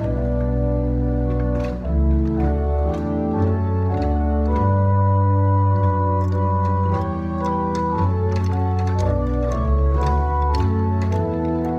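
Organ music: slow, sustained chords with deep bass notes, the harmony shifting every second or two.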